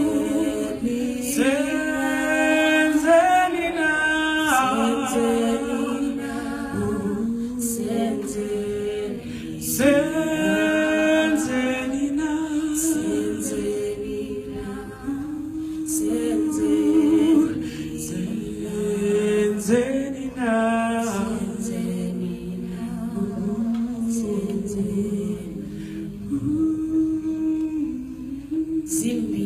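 Unaccompanied wordless singing: a slow melody held on long, gliding notes with no instruments.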